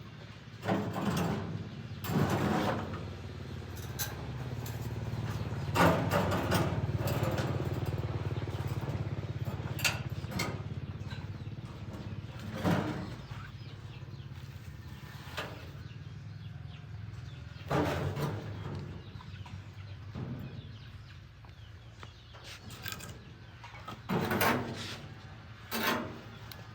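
Irregular knocks and clatters, a few seconds apart, over a steady low hum.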